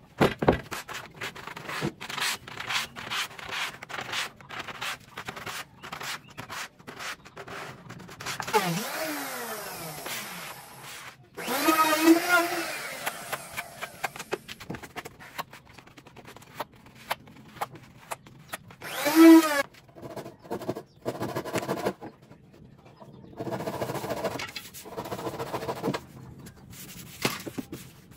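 Hand work on HPL laminate and a plywood carcass: quick repeated scraping strokes of a spatula spreading glue on the laminate sheet, then rubbing with a hand sanding block. Short pitched squeals that rise and fall break in about twelve and nineteen seconds in, the second one the loudest sound.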